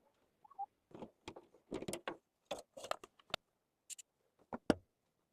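Scattered clicks and knocks of a metal cover being worked loose and lifted off an old air-conditioner outdoor unit, with a brief higher rattle near the end.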